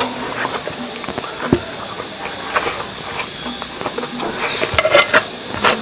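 Close-miked mouth sounds of a man eating spicy noodles by hand: wet chewing and smacking with many sharp clicks, and a longer slurp near the end.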